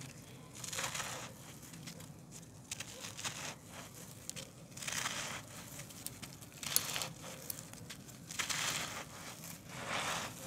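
Hands crushing and crumbling a handmade ball of packed dry, gritty dirt: a series of crunchy, gritty rushes one to two seconds apart, with loose grains pouring through the fingers and one sharp crack about seven seconds in.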